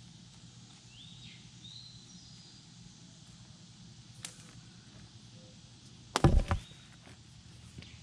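A short cluster of sharp knocks and rattles about six seconds in, over a faint steady low hum, with a few brief rising bird chirps.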